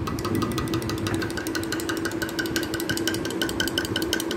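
Steel spoon stirring buttermilk fast in a glass mug, clinking against the glass several times a second with a light ringing tone. A steady low hum runs underneath.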